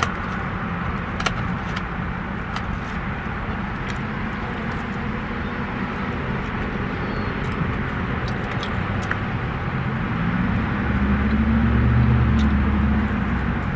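Steady car running noise heard from inside the cabin, with a deeper low rumble that swells from about ten seconds in and eases off near the end, and a few faint clicks.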